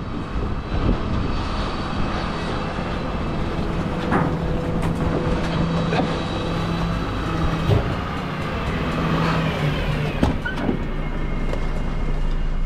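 Garbage truck's diesel engine running steadily, with a low drone and a few sharp knocks.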